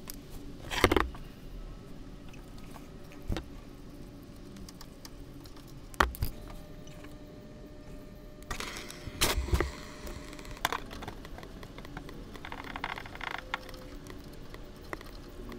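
Scattered clicks and clinks of hand tools on metal as hose clamps on power steering hoses are loosened, with a few sharp knocks and a short clattery stretch about nine seconds in.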